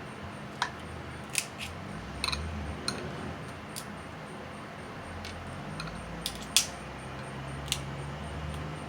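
Snow crab shells cracking and clicking as the legs are broken open by hand: about nine sharp, separate cracks spread through the stretch, the loudest a little past halfway, over a low steady hum.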